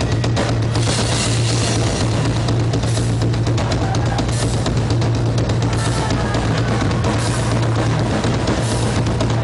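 Live rock drum solo on a full kit: rapid bass drum and drum strokes under ringing cymbals. A steady low drone runs underneath.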